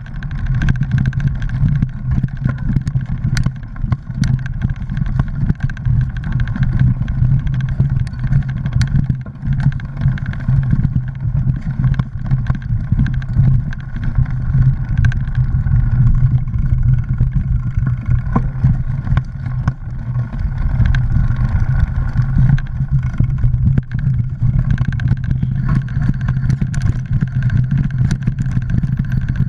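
Mountain bike riding over a dirt trail, heard from a camera mounted on the bike: a steady loud rumble with frequent sharp rattles and clicks as the bike jolts over bumps.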